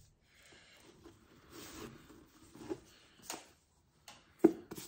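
Soft rustling of a sheer drawstring bag as it is handled and a hardback book is slid out of it, in several short patches. A single sharp tap comes near the end.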